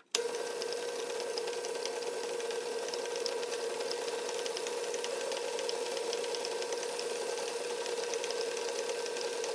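Metal lathe running steadily with a constant whine, its four-jaw chuck spinning while the tool takes a light turning cut, about ten thousandths, off a plastic workpiece; faint rapid ticking rides over the hum.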